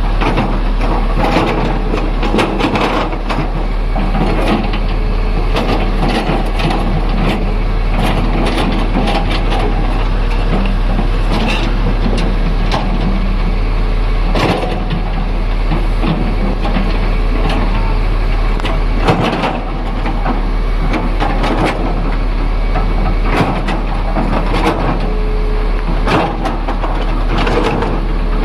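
Tata Hitachi excavator at work: its diesel engine running steadily, with irregular knocks and clatter throughout.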